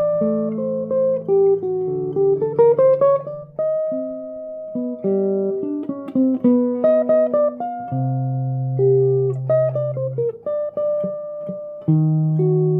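Solo jazz guitar playing chord melody: a plucked melody line moves on top while low bass notes and chord tones are held and left to ring underneath.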